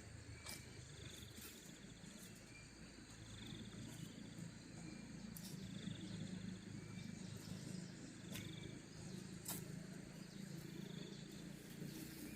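Outdoor rural ambience: an insect's short, high, pulsed chirp repeats about every two and a half seconds over a low steady hum, with a few sharp clicks.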